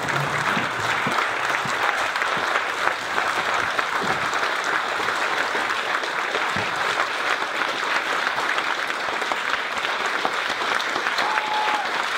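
Audience applauding steadily, a long unbroken round of clapping at the end of a speech.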